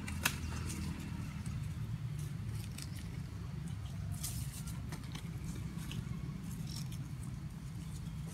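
Steady low rumble with scattered brief clicks and rustles over it, the sharpest about a third of a second in.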